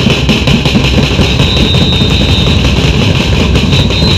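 Loud, dense din of a protest crowd outdoors, with a thin high tone held steady twice for about a second each.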